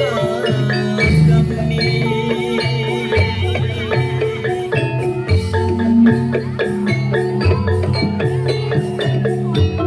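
Javanese gamelan music for a jathilan dance, played live through a sound system: struck bronze metallophones ringing over a steady low bass pulse.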